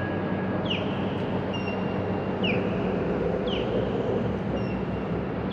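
A boat engine runs steadily under way, with a low hum over a wash of noise. A short, high, falling chirp repeats about once a second.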